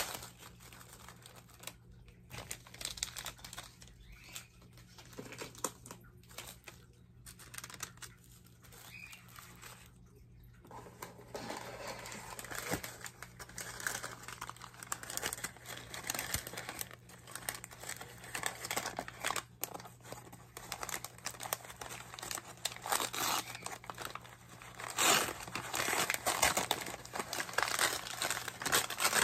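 Paper and plastic plant packaging crinkling and rustling as it is unwrapped by hand. The crinkling is sparse at first, then louder and busier from about the middle on.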